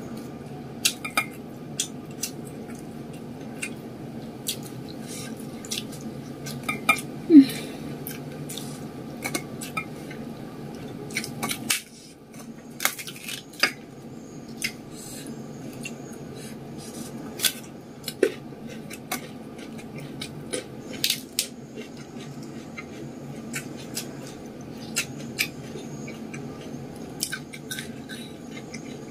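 Close-miked eating by hand: scattered sharp clicks, crunches and mouth sounds of fried tofu and raw vegetables being eaten, with light knocks against a stainless-steel plate, over a steady low hum.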